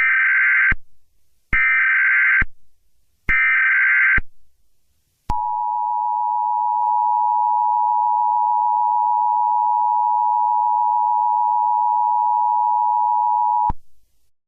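Emergency Alert System broadcast signal: three short buzzing bursts of digital header data, each under a second and about a second and a half apart. Then comes the two-tone attention signal, a steady tone held for about eight seconds that cuts off suddenly.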